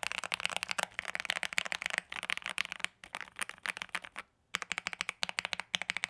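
Fast typing on a modded 68-key mechanical keyboard fitted with Akko ASA-profile clear keycaps, held close to the microphone as a sound test: a quick run of key clacks with a brief pause about four seconds in. The keycaps don't make the board sound tinny.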